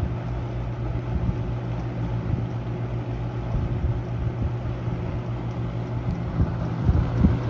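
Toastmaster box fan running steadily: a constant motor hum under the rush of air from the blade, with a couple of low bumps near the end.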